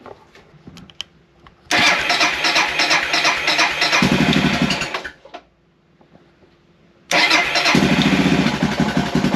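Suzuki DR650's single-cylinder engine being cold-started on choke with the electric starter. On the first try it catches after about two seconds of cranking, runs briefly and dies. On a second try a couple of seconds later it fires almost at once and keeps running.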